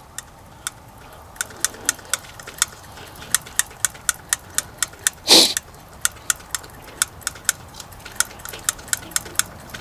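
Electric fuel pump on a John Deere 310G backhoe ticking rapidly and evenly, about three to four clicks a second, as it runs with the engine off, trying to self-prime the fuel line. One brief hiss sounds about halfway through.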